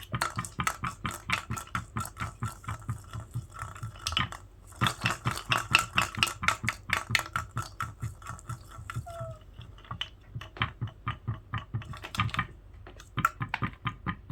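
A treat-dispensing ball pushed and rolled about by cats, with the last treat or so rattling inside as rapid clicking. There are short pauses about four and nine seconds in.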